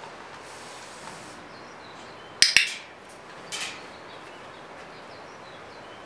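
Two sharp clicks and a short hiss of a hand spray bottle misting, then a second spray hiss about a second later.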